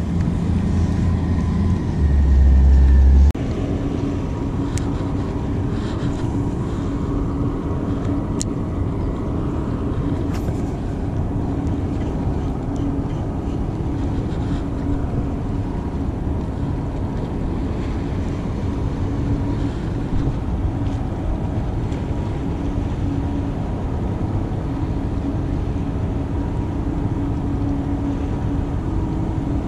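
Steady engine drone with an even low hum throughout. A gust of wind rumbles on the microphone about two seconds in.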